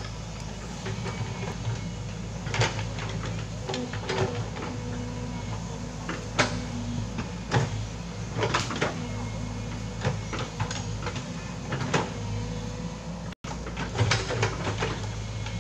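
Foton crawler excavator's diesel engine running steadily under load, with frequent sharp knocks and clanks as it digs.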